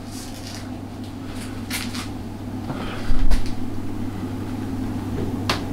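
A few sharp knocks and one heavy thump about three seconds in, over a steady low hum.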